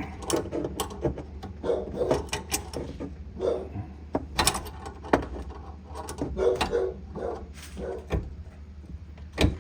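Irregular clicks, clinks and knocks of plumbing compression fittings and tools being handled on copper pipe, with a steady low hum underneath.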